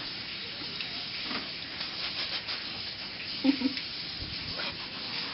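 Large knife sawing and scraping through the rough, spiky rind of a whole jackfruit, a repeated rasping rub. Two brief louder sounds come about three and a half seconds in.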